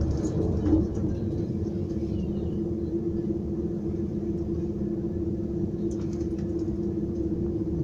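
Cabin noise inside an ICE 4 high-speed train on the move: a steady running rumble with a constant low hum.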